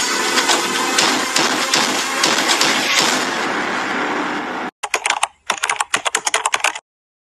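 An intro sound effect: a dense, crackling clatter that cuts off suddenly, then a quick run of keyboard-typing clicks for about two seconds that stops abruptly.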